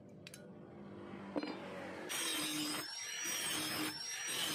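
Angle grinder grinding the edge of a steel motorcycle brake disc, its high motor whine wavering a little as the wheel bites. It comes in about a second and a half in and is loud from about two seconds on, easing off briefly twice.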